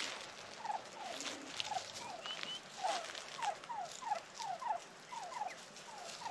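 Turkeys calling softly, a steady string of short falling notes, two or three a second, with faint scattered clicks from movement.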